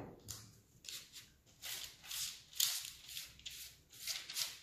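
Small spatula rubbing olive oil across baking paper on a baking tray: a run of short papery swishing strokes, about two a second, starting about a second in.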